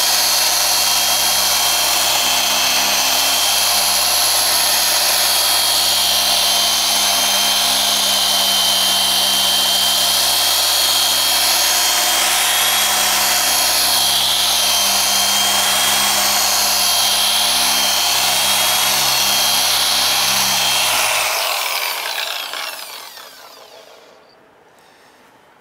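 SPTA 15 mm dual-action polisher with a yellow foam cutting pad running steadily as it works compound into car paint, the cutting stage of swirl-mark correction. About 21 seconds in it is switched off and winds down, falling in pitch.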